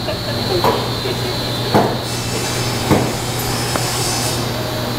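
Three sharp wooden knocks, about a second apart, over a steady machine hum.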